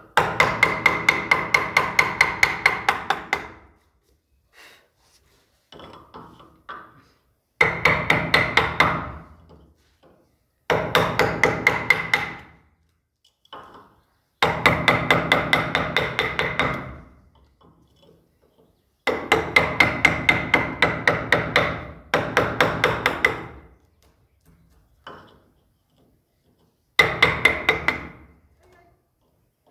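Steel wood-carving chisel driven with a mallet into a wooden flower carving: runs of quick, ringing taps, about four or five a second, each run lasting two to three seconds, with short pauses between.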